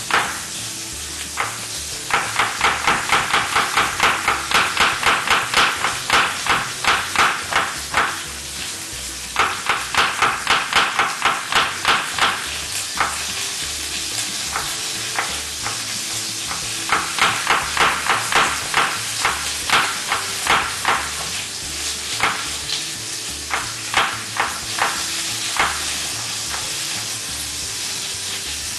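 A chef's knife slices an onion thinly on a wooden cutting board, with quick runs of cuts about three or four a second in three bursts, then slower single cuts. Under it runs the steady sizzle of oxtail searing in hot oil in a pan.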